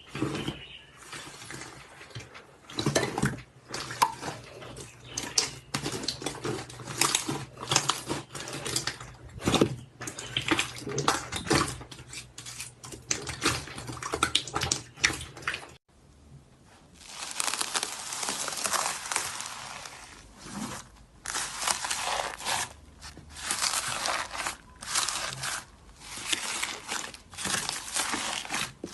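Hands squeezing, poking and stretching slime: irregular squishy crackles and pops, with a sudden change to a new batch of slime about halfway through.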